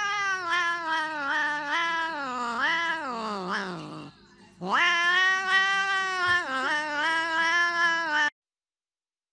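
Domestic cat yowling in two long, drawn-out calls with a wavering pitch. The first slides down in pitch and fades about four seconds in; the second begins just after and cuts off abruptly near the end.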